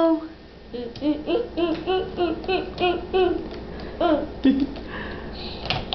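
A toddler's voice in a run of short, high, sing-song syllables, about three a second, lasting some four seconds.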